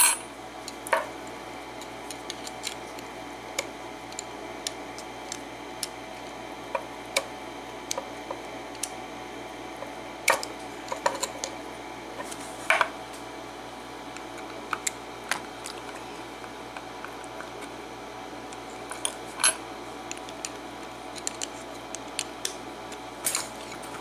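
Scattered small metal clicks and clinks from a brass pin-tumbler lock cylinder (an Ilco with a Kwikset keyway) being handled and worked with its key, a few of them louder, over a steady faint hiss.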